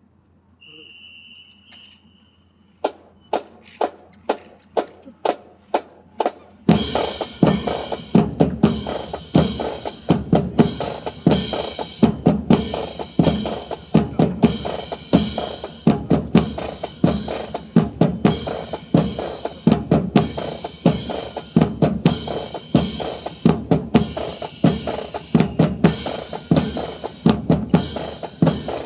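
Drum cadence of snare and bass drums with a steady beat, starting about a quarter of the way in. Before it come a brief high steady tone and a run of sharp single strikes about every half second.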